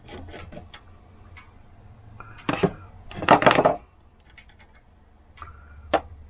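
Metal parts of a tubular-chime clock hammer clicking and clattering as the hammer is unscrewed and taken apart, with a sharp clatter and then a longer, louder rattle a little past the middle.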